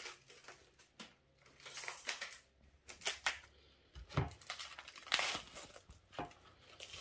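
Clear plastic film crinkling and rustling in irregular bursts as it is pulled off a tray of diced beef, with a dull knock about four seconds in.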